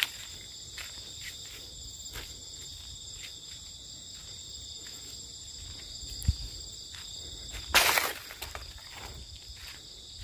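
Dusk chorus of insects such as crickets, a steady high-pitched trilling throughout, with a brief rustling noise about eight seconds in.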